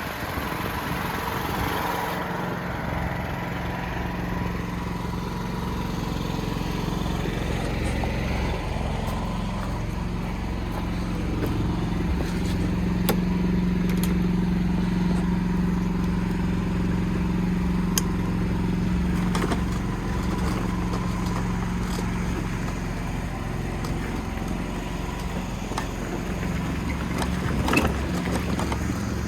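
Small petrol engine running steadily at constant speed, a little louder around the middle.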